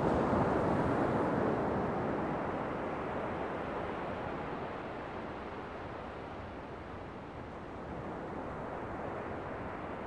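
Ocean waves washing up a beach: a wave's wash is loudest at the start and fades away over several seconds, and a smaller wash comes in near the end.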